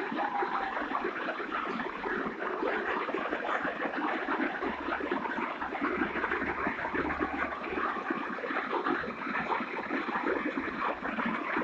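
Swollen hill river in flood, its muddy torrent rushing steadily.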